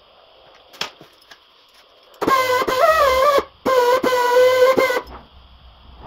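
Small air-powered grinder whining with a hiss of exhaust air, run in two bursts of about a second each, its pitch sagging and wavering as it cuts into honeycomb grille mesh. A single click comes before the first burst.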